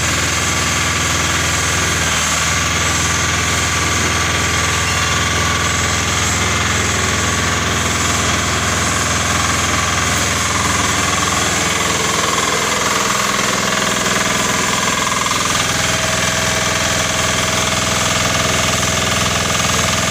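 M7MI interlocking clay brick-making machine running, an even, loud mechanical drone that holds steady without breaks.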